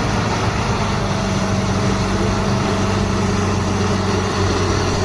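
Heavy bulldozer engine running steadily with a low, even drone.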